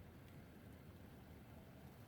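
Near silence: a faint, even low rumble of outdoor winter ambience.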